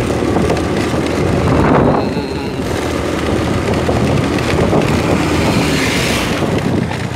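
Wind buffeting the microphone of a phone filming from a moving vehicle, over the steady low running of its engine.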